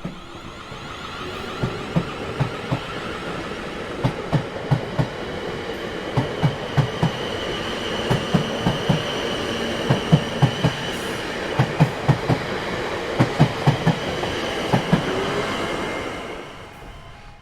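A train rolling past, its wheels clicking over rail joints in quick groups of two to four every second or so over a steady rumble. The sound builds over the first few seconds, holds, then fades away near the end.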